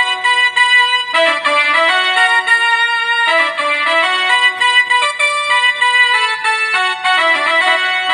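Electronic keyboard playing a melody over held chords, several notes sounding at once, with the notes changing every half second to a second.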